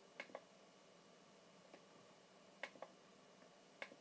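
Computer mouse button clicked three times, each click a quick pair of ticks, over a quiet room.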